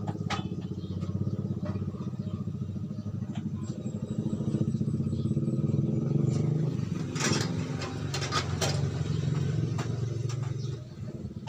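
A steady low hum with a fast, even pulse, like an idling engine, easing off near the end. A few light clicks and taps about two-thirds of the way through, from an LED backlight strip being handled against the TV's metal back panel.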